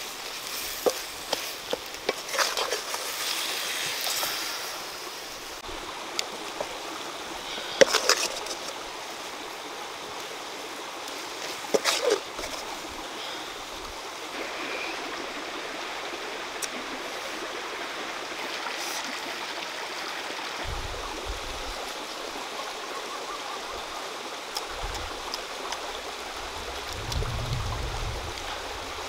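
Steady rush of a flowing stream, with a few sharp knocks and scrapes of a spatula against a wok and a clay bowl in the first half.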